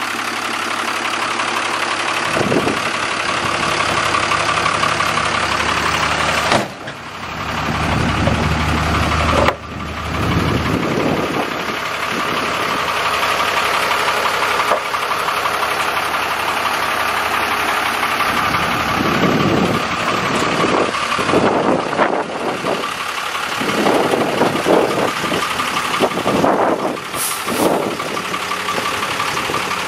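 A 2000 Freightliner fuel truck's diesel engine idling steadily, then running as the truck moves off near the end.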